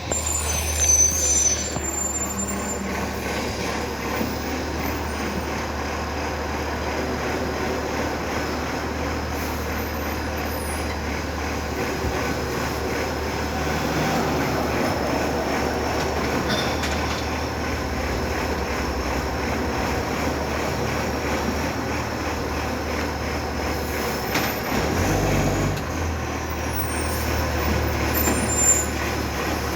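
Iveco ACCO side-loading garbage truck running with a steady low engine drone and a thin high whine over it. Short sharp sounds, the loudest about a second in and near the end, break through the drone.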